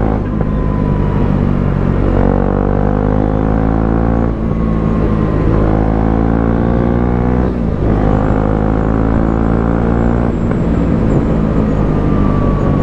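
KTM RC 390's single-cylinder engine running loud through an aftermarket Akrapovic muffler while riding. The engine note climbs slowly in pitch and breaks off four times, about every two to three seconds.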